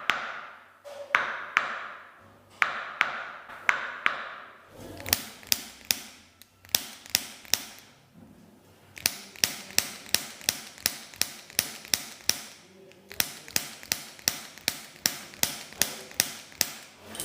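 Sharp clicking taps during a chiropractic treatment, coming in quick runs of about three a second with short pauses between the runs.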